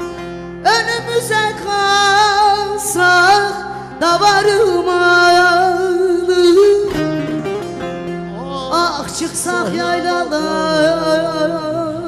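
A woman singing a Turkish folk song live into a microphone, in long ornamented phrases with a wavering, vibrato-laden pitch, over a plucked-string accompaniment.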